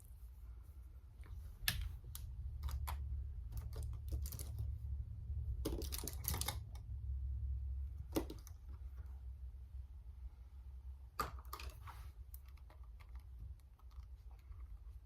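Irregular light clicks and taps, a few in quick clusters, over a low steady rumble.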